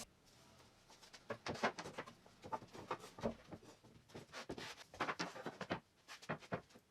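Light, irregular taps and clicks of hands and tools on a sheet of plywood while a cut line is measured and marked.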